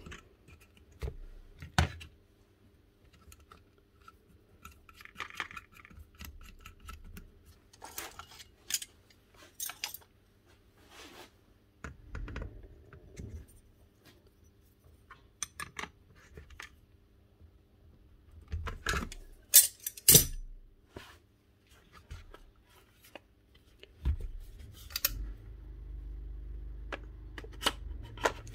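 Small metal parts and tools of a rotary hammer being handled and fitted together on a workbench: scattered light clicks, taps and clinks, with a few louder sharp knocks clustered about two-thirds of the way through. A low steady hum starts near the end.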